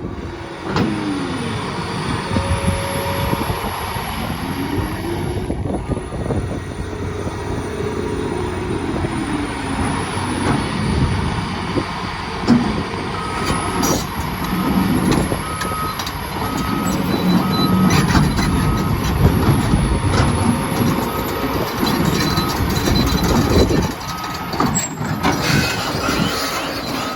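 Caterpillar 336E L excavator's diesel engine and hydraulics working, the pitch rising and falling as the machine is operated. From about halfway through, its travel alarm beeps steadily, a sign that the excavator is tracking.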